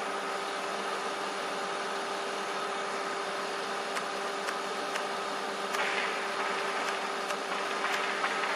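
Steady mechanical hum holding several fixed tones over a light hiss. From about four seconds in come a few light clicks, then short rustling hisses near six and eight seconds.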